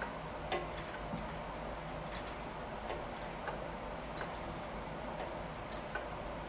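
Hand ratchet wrench clicking in short, irregular ticks, roughly one or two a second, as the muffler brace bolt is run in.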